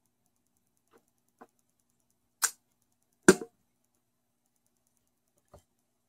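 Handling noise as the acoustic guitar is moved close to the microphone: a few light clicks and two sharper knocks around the middle, the second the loudest, then one faint click near the end.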